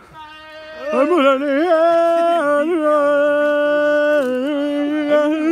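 A single voice singing long held notes with quick wavering turns between them, in a melismatic, chant-like style, starting about a second in.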